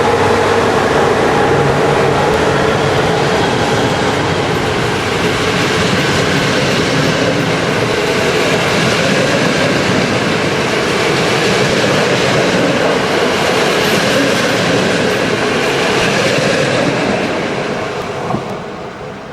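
A train passing close by: a long, loud, steady rush of wheels on rail that fades away over the last two seconds as it moves off.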